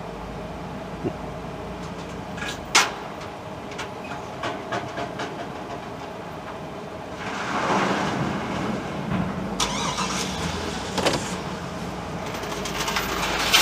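A car engine starting about halfway through, then running, over a steady low hum, with a few sharp knocks, one about three seconds in and one at the end.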